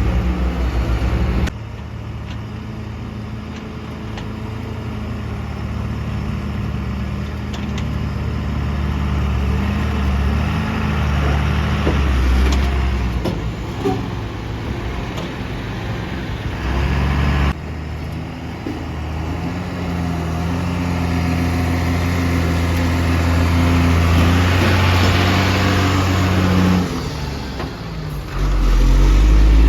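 Heavy diesel engine running under changing load, its pitch rising and falling, with sudden jumps in level about a second and a half in, a little past halfway and near the end.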